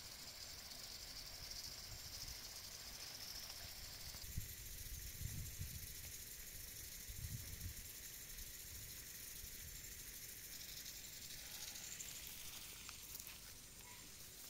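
Faint outdoor ambience: a steady high hiss, with a few soft low thumps of wind or handling on the microphone around the middle.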